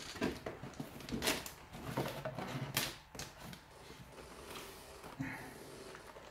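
Accessory packaging in a motherboard box being handled and pulled out: a scatter of sharp rustles and clicks, busiest in the first three seconds, then quieter.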